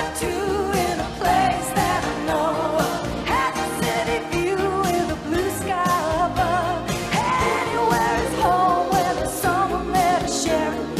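Sung pop theme song for a TV sitcom: a lead vocal sings the melody over a band with a steady drum beat.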